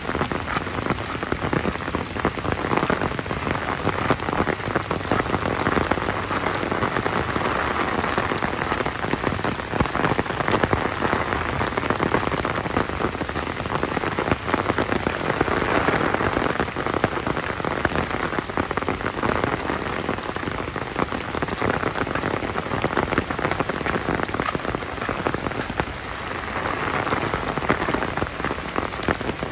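Steady rain falling, countless drops striking hard surfaces in a dense, even hiss of small hits.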